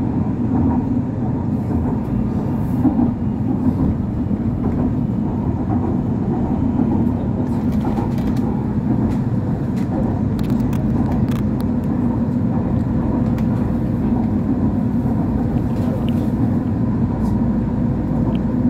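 Busan–Gimhae Light Rail train running steadily at speed on its elevated track, heard from inside the front car: a constant rumble of wheels on rail with a faint steady high tone over it. A few light clicks come through about halfway.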